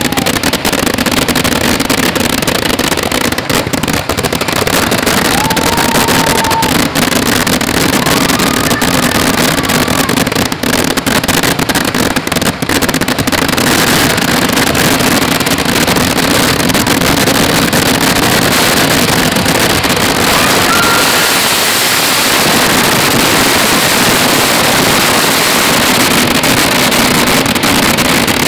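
Kerala temple-festival firecracker barrage (eduvedi): countless crackers bursting in rapid, unbroken succession, a dense loud crackle that settles into a steadier roar about halfway through. Two brief whistling tones rise out of it, one about six seconds in and one near twenty-one seconds.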